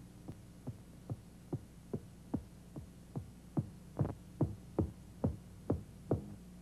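Cartoon footstep sound effect of a creature walking up: about fifteen short, evenly spaced thuds, about two and a half a second, each dropping quickly in pitch, growing louder and stopping near the end. A faint steady hum runs underneath.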